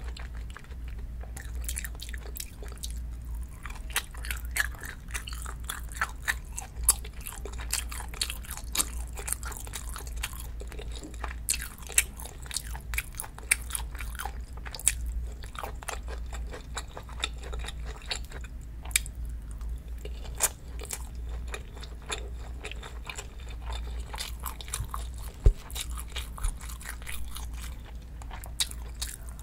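Close-miked sounds of a person chewing food: wet, crackling mouth sounds and small crunches over a steady low hum, with one sharp click late on.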